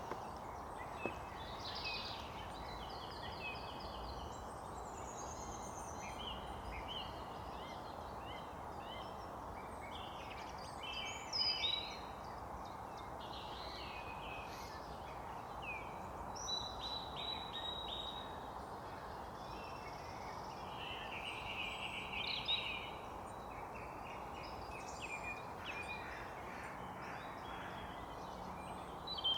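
Several wild birds singing at once, with short phrases and trills overlapping, over a steady background rush. The loudest phrases come about a third and about three-quarters of the way through.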